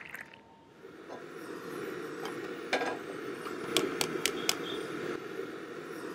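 Steady background rumble of a tea stall that fades in and holds. A few sharp clinks sound through it, one a little under three seconds in and a quick run of four around four seconds in.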